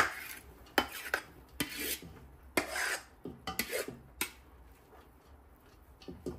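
A spoon scraping and clinking against a cooking pot as boiled rice is spread in as the first layer of a biryani: a run of short scrapes and knocks, dying away for the last two seconds.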